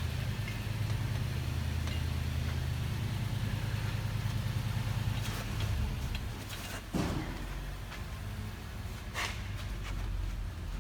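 A steady low machine hum that fades out about six seconds in, with a few light clicks and knocks.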